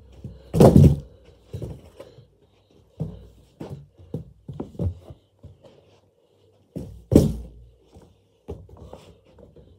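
Irregular thuds of a balloon being batted and kicked around a small room, with heavier thumps about half a second in and about seven seconds in.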